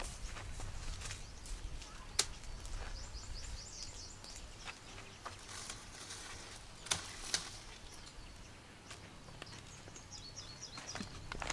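Rural outdoor ambience: short runs of high bird chirps, a few seconds in and again near the end, over a low steady background noise, with a few sharp clicks or knocks.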